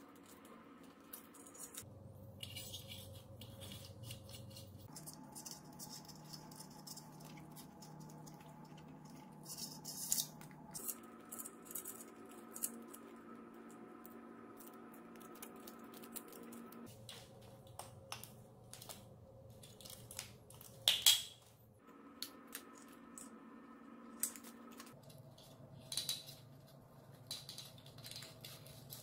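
Scattered clicks, taps and light rattles of wires, metal motor parts and small tools being handled, the sharpest knocks about a third of the way in and again past two thirds. Under them runs a faint set of steady tones whose pitch shifts every few seconds.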